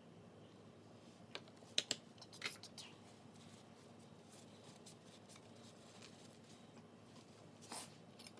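A handful of light clicks and taps as small plastic paint cups are set down on a plastic-sheeted table, clustered about a second or two in, with one more tap near the end, over a faint room hum.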